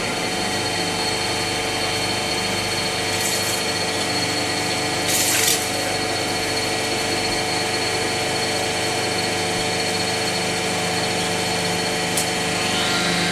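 Pipe tee cold-forming machine running: a steady motor drone with several fixed tones, with two short hisses about three and five seconds in and a sharp click near the end.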